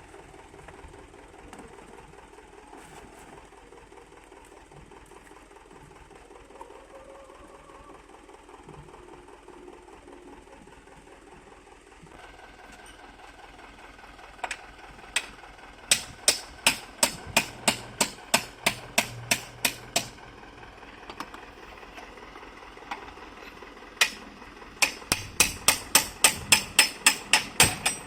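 A heavy diesel engine running steadily. About halfway through and again near the end come two runs of loud, sharp metallic bangs, about three a second.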